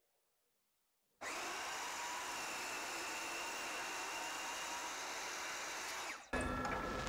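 DeWalt DWS780 sliding miter saw with a 120-tooth thin-kerf carbide aluminium blade cutting through 2-inch solid aluminium bar. A steady whine of motor and blade grinding through the metal starts abruptly about a second in. About six seconds in the sound changes abruptly to a fuller, lower running.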